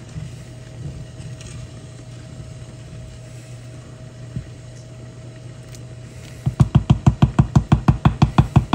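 A wooden spoon knocking rapidly against the rim of a metal cooking pot, about eight even knocks a second for some two seconds near the end, over a steady low hum.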